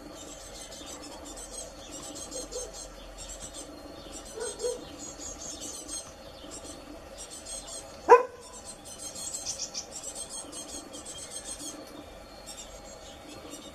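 A dog barks once, short and sharp, about eight seconds in, over a steady high chirping in the background.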